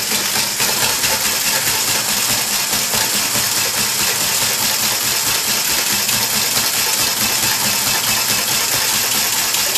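Cordless drill starting up and running at a steady speed, driving a shake table's platform back and forth so the table and model rattle.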